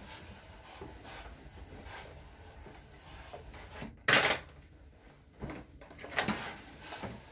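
Steam iron at work on bedsheets: quiet handling and knocks of the iron on the cloth and table, with a short, loud hiss about four seconds in and a weaker one about two seconds later.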